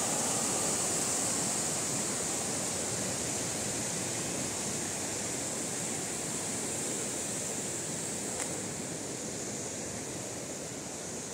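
Muddy floodwater rushing over rocky rapids, a steady roar of water that slowly grows a little fainter.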